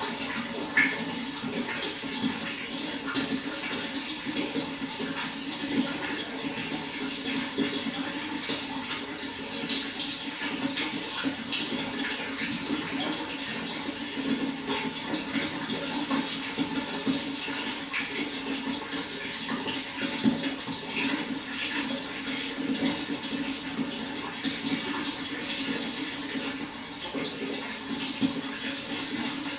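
Water flowing steadily, with a continuous rushing hiss and many small splashes.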